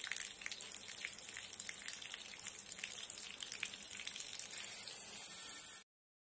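Water jet from a miniature DC-motor water pump spraying out of a plastic tube and pattering onto small plastic plants and soil: a steady crackling splash with a hiss. It cuts off suddenly near the end.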